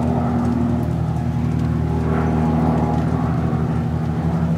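Cessna 182 light aircraft's piston engine and propeller droning steadily as the plane flies overhead.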